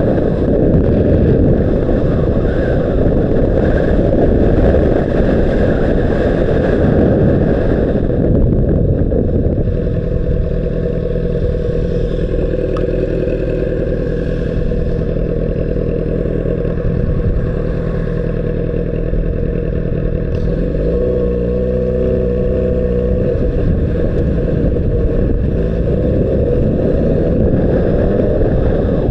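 Honda CBR600RR motorcycle's inline-four engine running under way, picked up by an action camera's microphone with heavy wind rush. For the first several seconds the wind rush dominates. Then the engine note comes through steadier, and its pitch wavers up and down for a few seconds past the two-thirds mark.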